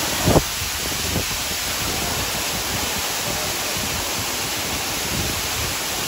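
Waterfall rushing: a steady, even roar of falling water, with one brief low thump about a third of a second in.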